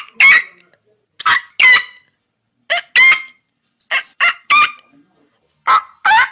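Pelican calling: short pitched calls in groups of two or three, a group about every one and a half seconds.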